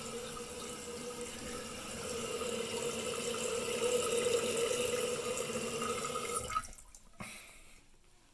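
Eljer toilet tank's fill valve hissing as water refills the tank, with a steady whistling tone, growing a little louder. It shuts off sharply about six and a half seconds in as the tank reaches its fill level, followed by a faint click.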